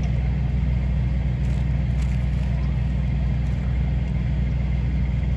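Steady low engine hum, a motor running at an even speed, with no change in pitch or level.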